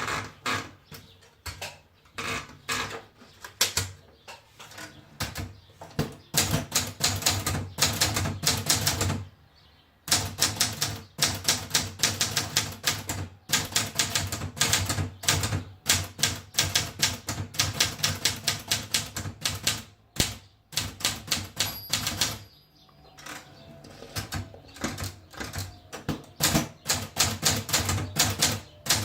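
Scheidegger International 2000 typewriter being typed on: quick runs of key strikes clacking, broken by short pauses.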